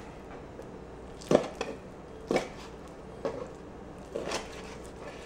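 A chef's knife cuts boneless chicken thighs into bite-sized pieces on a plastic cutting board. The blade knocks on the board four times, about once a second.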